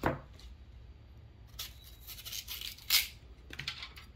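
Kitchen knife cutting the seeds and core out of a Korean pear over a wooden cutting board: a few separate cutting strokes, with a sharp one right at the start and another about three seconds in.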